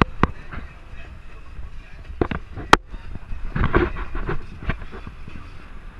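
Wind buffeting and road rumble on a camera mounted outside a moving Jeep, with several sharp knocks, the loudest about halfway through.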